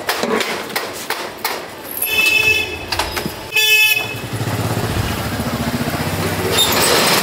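Street traffic: a vehicle horn honks twice, briefly about two seconds in and again a second and a half later, then a small engine runs close by with a low steady hum.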